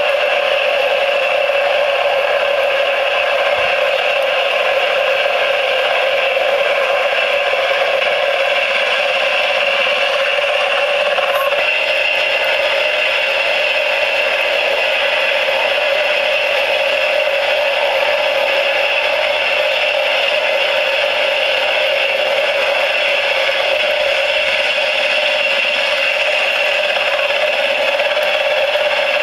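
Small electric motor spinning the rotor of a model tilt-rotor aircraft: a steady whir with a rattle, holding one pitch throughout.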